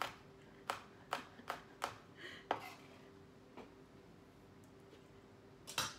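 Sharp knocks of kitchen utensils at the counter: about six quick knocks in the first two and a half seconds, then a louder one near the end, over a faint steady hum.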